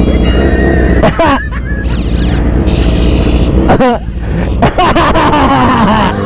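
A Basuri horn fitted to a Yamaha R6 motorcycle sounds siren-like, warbling tones, like an ambulance siren, over a steady low engine hum.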